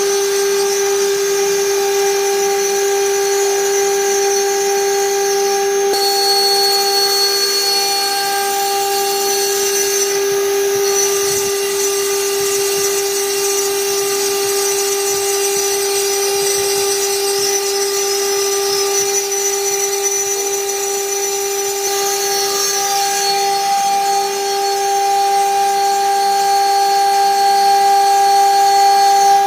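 A CNC stone-carving machine's spindle running at a steady speed while it cuts stone, giving a constant whine with a hiss of cutting over it.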